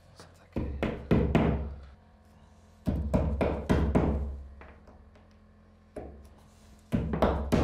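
Hammer tapping plastic wall anchors into drilled holes in the wall, sharp knocks in quick runs of several blows, with a single tap in between.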